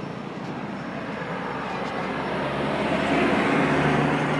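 A motor vehicle's engine running steadily, getting louder toward the end as it draws closer.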